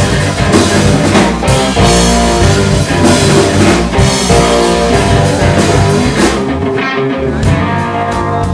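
Live rock band playing: a Stratocaster-style electric guitar over bass and a drum kit. The drum and cymbal hits thin out about three-quarters of the way through, leaving mostly guitar and bass.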